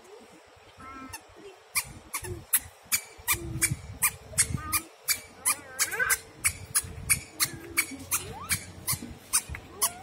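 Footsteps on dry dirt and twigs, a sharp step about twice a second, with a few short high squeaks between them.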